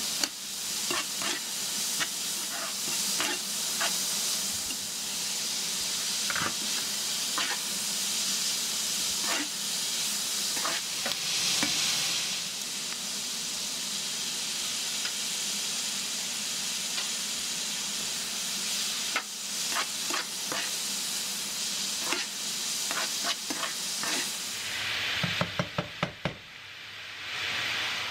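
Vegetables and meat stir-frying in a hot nonstick frying pan: steady sizzling, with a metal slotted spoon clicking and scraping against the pan as the food is tossed. A quick run of clicks comes near the end.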